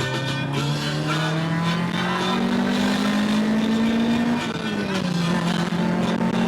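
Car engine running under load while driving, its pitch climbing slowly and then dropping about four and a half seconds in, as at a gear change.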